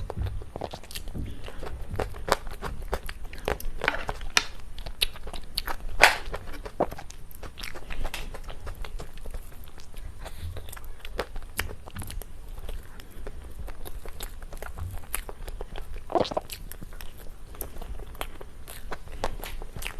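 Close-miked mukbang eating sounds: a person biting and chewing cake, with many small mouth clicks and smacks. The sharpest, loudest one comes about six seconds in.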